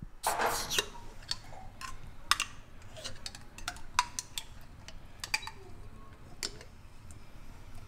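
A metal utensil clicking and scraping against a glass jar while chilli jam is scooped out into a saucepan: a brief scrape just after the start, then light, irregular ticks.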